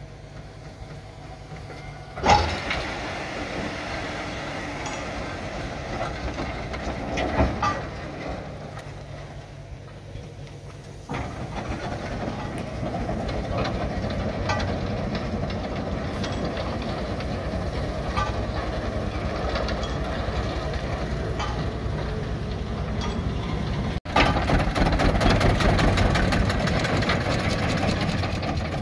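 Mann steam wagon running and driving over gravel, a steady mechanical clatter from the engine and wheels, with a few sharp knocks. The sound steps louder about eleven seconds in and again near the end.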